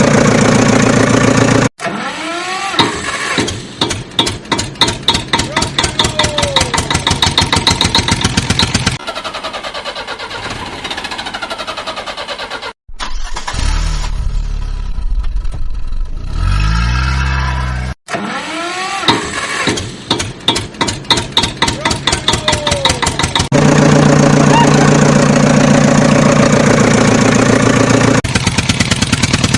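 Diesel engines of construction machinery, a tractor and a JCB backhoe loader, running at a building site. The sound is cut together from several clips with abrupt breaks: a steady engine note, stretches of loud rhythmic pulsing beats, and a low engine note that steps up in pitch in the middle.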